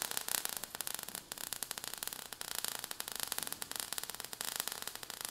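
Crackling sparks sound effect: a dense, steady crackle of rapid fine clicks over hiss.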